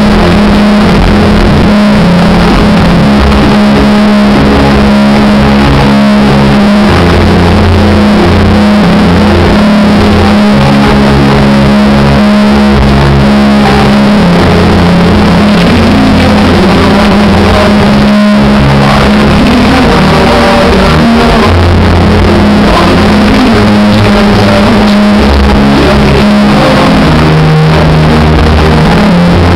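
Very loud DJ-played dance music over a club sound system, with a heavy, repeating bass line. The music breaks off for a moment about 18 seconds in, then continues.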